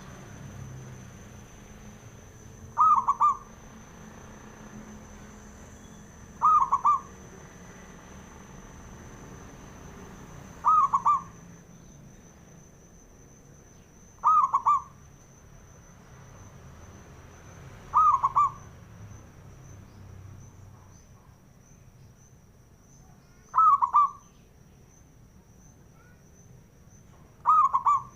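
Zebra dove (perkutut) singing its cooing song: a short, quick run of notes, repeated seven times about every three to four seconds. A faint steady high whine runs underneath.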